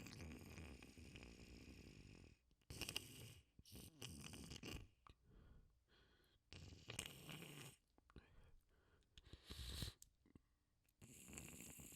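Wet sniffling and snorting through a runny, congested nose, in about six separate bouts with short pauses between.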